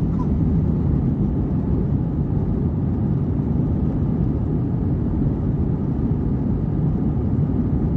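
Cabin noise of an Airbus A321 jet taxiing: a steady low rumble of its engines at taxi power and its wheels rolling over the pavement.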